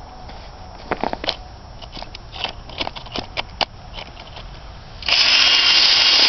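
Scattered crunches and clicks in the snow, then an electric drill with a large bit runs in one loud burst of about a second and a half near the end.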